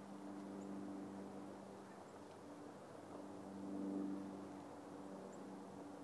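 A steady low mechanical hum made of several held tones, like a distant engine, swelling to its loudest about four seconds in. A few faint, short high chirps sound over it.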